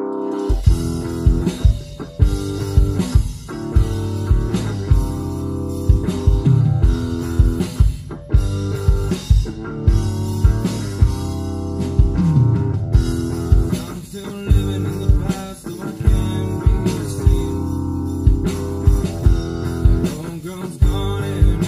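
Rock music: a band with electric guitar, bass guitar and drums, the drums coming in about half a second in and keeping a steady beat under the guitar.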